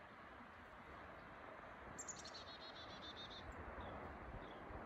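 A small songbird sings one rapid trill of evenly repeated high notes, starting about two seconds in and lasting about a second and a half. Under it runs the faint, steady rush of a flowing river.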